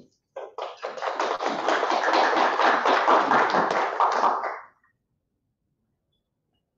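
Audience applauding, a dense patter of many hands clapping that stops abruptly about four and a half seconds in.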